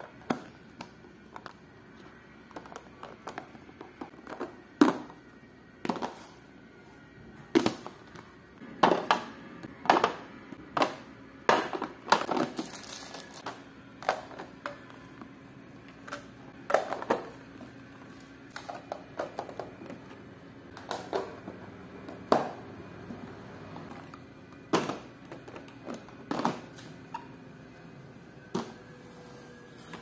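Clear plastic food-storage containers being closed and stacked: lids pressed and snapped on, and boxes set down on a hard countertop, giving a series of irregular sharp clicks and knocks.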